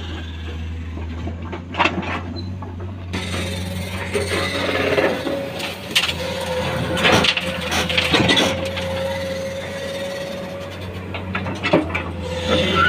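Heavy diesel engines running with a steady low drone, while a Komatsu crawler excavator's bucket digs into soil and rock with scattered knocks and scraping. A steady whine runs from about three seconds in to about eleven seconds.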